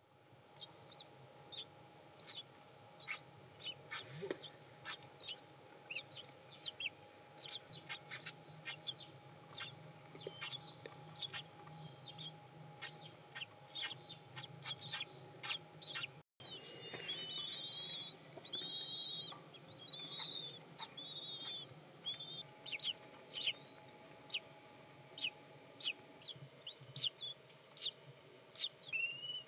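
Freshly hatched kestrel chicks cheeping: many short, thin, high peeps, each falling in pitch. After a cut about halfway through comes a louder run of wavering calls.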